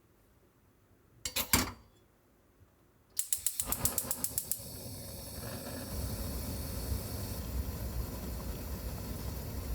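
Gas stove burner being lit: a couple of clicks of the knob, then the igniter ticking rapidly for about a second and a half until the flame catches, followed by the steady rush of the burning gas, to heat water for tea.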